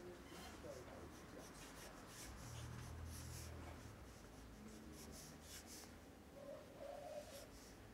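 Pencil drawing on paper: a run of quick, short, faint scratching strokes at an uneven pace as a figure is sketched.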